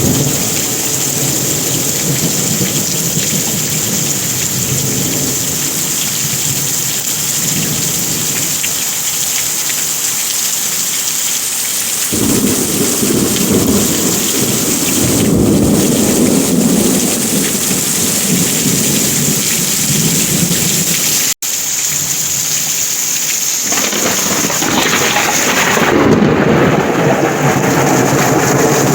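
Heavy rain falling in a steady hiss, with low rolling thunder rumbling under it. One rumble sets in abruptly about twelve seconds in and another comes near the end. The sound cuts out for an instant a little past the middle.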